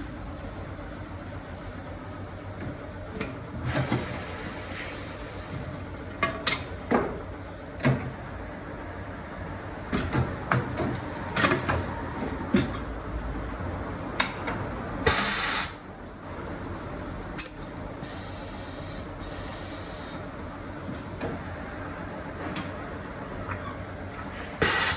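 Tyre-change work: several short bursts of hissing, with scattered clicks and knocks of tools and parts.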